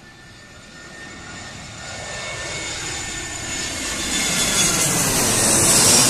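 Airbus A320-214's CFM56 turbofan engines on landing approach, growing steadily louder as the jet comes in low and passes overhead. A whine rides over a rushing jet noise that peaks near the end.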